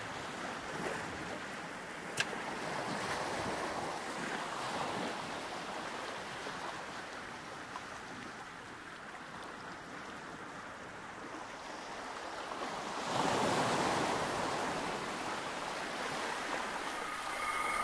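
A steady rushing noise that swells louder about thirteen seconds in, with one sharp click about two seconds in.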